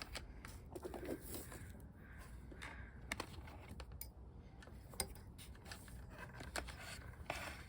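Faint handling noise: scattered light clicks, taps and rustles as turn-signal wires are fed through a hole in an e-bike's fender.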